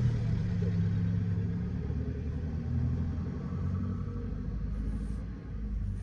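Low, steady rumble of a motor vehicle engine running, fading slightly toward the end.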